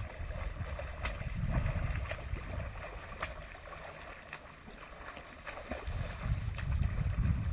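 Water splashing and lapping as a person wades through a lake, with scattered small splashes and a low rumble on the microphone that swells about a second in and again near the end.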